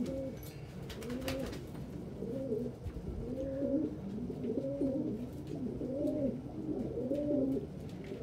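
Domestic pigeon cooing: a continuous string of low, rising-and-falling coos, about one a second.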